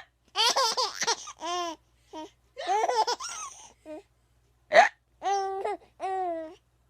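A woman hiccups sharply, once at the start and again about five seconds in, and a baby laughs in runs of high-pitched squealing bursts after each hiccup.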